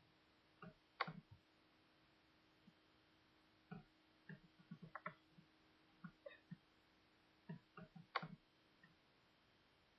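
Scattered light knocks and taps of hands handling newborn puppies and blankets in a cardboard box, with two louder bumps, one about a second in and one near the end.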